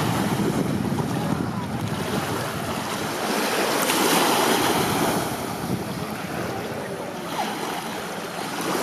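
Wind buffeting the microphone over the sound of small waves washing, swelling and easing again about halfway through.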